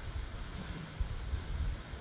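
A low, uneven rumble of background noise picked up by the microphone during a pause in speech.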